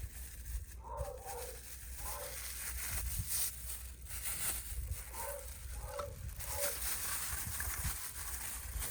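Wind buffeting the microphone with a steady low rumble and gusts of hiss. Short pitched animal calls sound about five times, roughly a second in, at two seconds, and three times between five and seven seconds.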